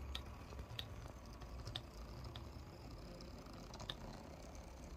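Two model locomotive chassis with coreless motors creeping along the track at a low speed step, their drivetrains making a faint running hum with a few light, irregular clicks.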